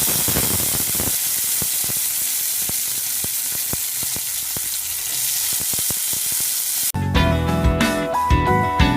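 Sweet corn kernels frying in a little hot oil in a kadai on a low flame: a steady sizzle with many sharp popping crackles. About seven seconds in the sizzle cuts off and background music with plucked notes takes over.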